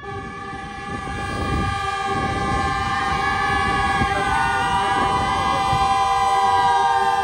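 Passenger jeep driving up a dirt track, its engine noise under loud, steady horn-like tones with a wavering pitch line above them, growing louder as it approaches.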